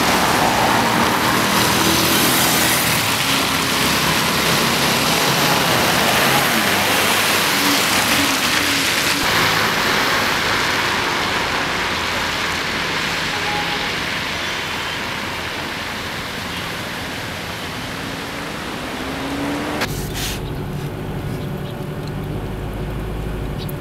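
Steady road traffic noise, a continuous wash of passing cars. About twenty seconds in it cuts to a duller, lower rumble.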